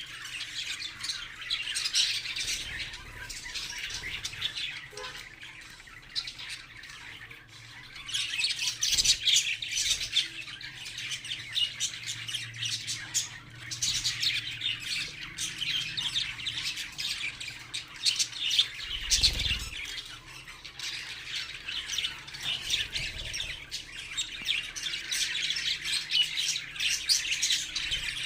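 Budgerigar chattering: a fast, unbroken run of high chirps and squawks, with a quieter stretch about a quarter of the way in.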